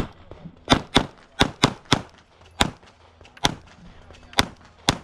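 Glock 45 9mm pistol firing about nine shots in a stage string, some in quick pairs and the rest single shots spaced up to a second apart.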